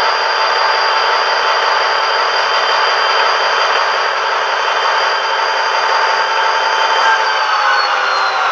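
HO-scale GP40-2L model locomotive's sound decoder playing its diesel engine sound through the model's small speaker: a steady engine drone with a high turbocharger-like whine. About seven and a half seconds in, the whine and drone slide down in pitch as the engine sound drops back from full RPM.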